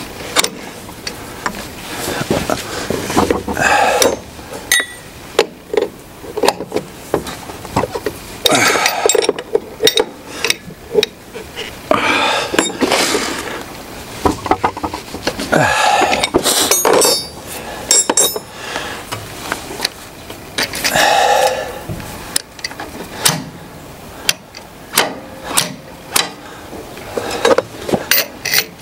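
Hand wrenches clinking and tapping against steel hydraulic hose fittings as the fittings are turned and tightened, in scattered sharp metal clicks with a few short muffled sounds in between.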